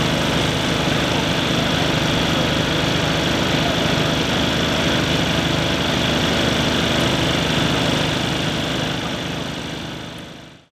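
An engine running steadily at idle, a constant low drone that fades out near the end.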